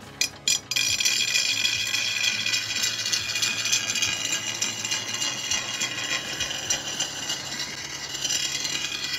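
Steel cleaver blank, cut from an old chainsaw blade, ground flat against a spinning grinding wheel: a couple of short knocks, then about a second in a loud, steady grinding hiss as the steel is pressed onto the wheel.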